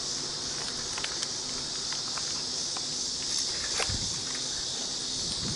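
A bicycle rolling along an asphalt street, with scattered light clicks and rattles, over a steady high-pitched drone of insects.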